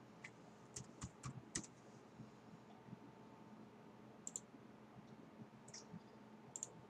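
Faint, scattered clicks of a computer mouse, some coming in quick pairs, over a faint steady hum.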